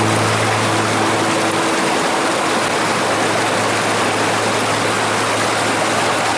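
Steady rush of a mountain stream, an even hiss of flowing water. Low held notes of background music fade out over the first two seconds.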